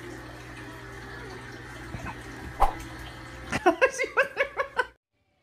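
Baby laughing in a quick run of about eight "ha-ha-ha" bursts near the end, over a steady background hum, with a couple of soft knocks before the laughter.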